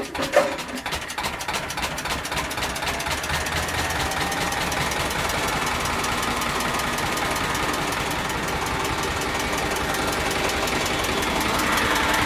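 1958 Lister CS6/1 single-cylinder diesel firing up after hand-cranking. It catches with a loud knock about half a second in, picks up speed over the next few seconds, then runs steadily with an even knocking beat.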